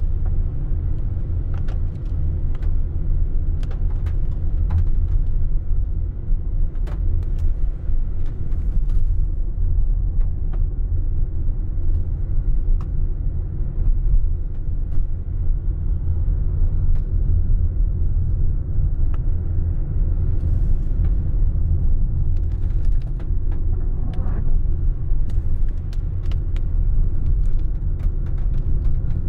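Car cabin noise while driving on a wet road: a steady low rumble of engine and tyres, with scattered sharp ticks of raindrops hitting the windscreen and roof.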